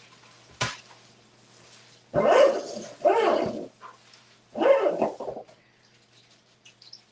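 A dog barking three times, each bark about half a second long, the first two close together and the third a little over a second later. A short sharp knock comes just before, about half a second in.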